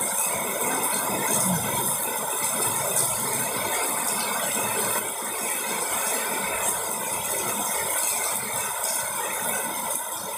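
Small spinning fishing reel being cranked to bring in a hooked fish, a continuous fine ratcheting click.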